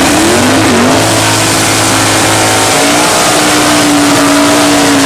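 Big-block V8 drag cars at full throttle making a pass down the strip. The engine note rises at the launch, drops once about a second in at a gear change, then holds a high, steady pitch very loudly before cutting off near the end.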